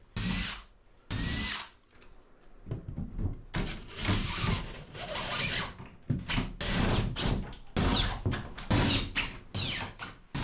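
Cordless drill run in short trigger bursts, setting quarter-inch lag bolts through the bulkhead into the boat's wooden frame. Two quick spins come first, then a string of stop-start bursts, the motor's whine sagging in pitch in several of them as it loads up.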